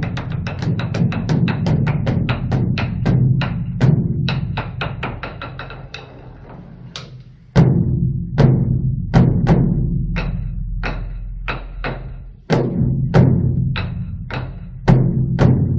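Beopgo, the large Buddhist dharma drum, beaten with two wooden sticks: a fast run of strokes that slows and fades away about six seconds in, then strong separate strokes about two a second, which fade again and pick up once more near the end. Each stroke is a sharp stick crack over a deep drum tone that rings on.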